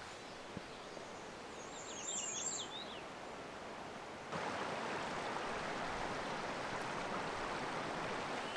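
Quiet woods ambience with a songbird giving a short burst of quick, high chirps about two seconds in. About four seconds in, the steady rush of running river water starts abruptly and continues evenly.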